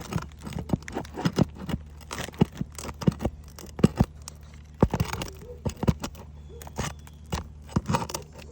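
Hand tool scraping and knocking against asphalt shingles and roofing nails as the nails are pried out, an irregular run of sharp clicks, taps and short scrapes.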